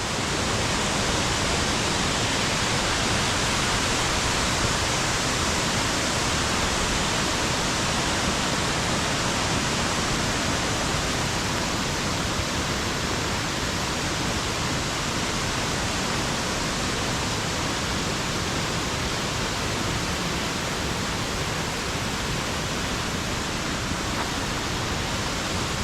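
Steady rushing roar of a large waterfall, water pouring over many cascades, even and unbroken throughout.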